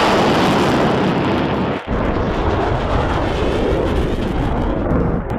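F-16 fighter jet's engine running at high thrust as the jet rolls down the runway: a loud, steady jet roar. The sound dips briefly about two seconds in where one clip is cut to the next.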